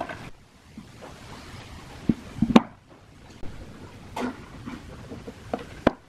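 Metal ceiling-fan parts handled on a wooden workbench: scattered knocks and clicks, the sharpest about two and a half seconds in and again just before the end.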